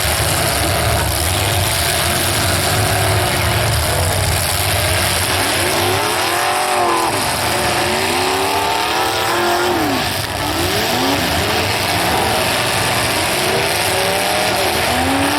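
Demolition derby car engines revving up and down, several at once, their pitches rising and falling over one another above a constant loud engine din.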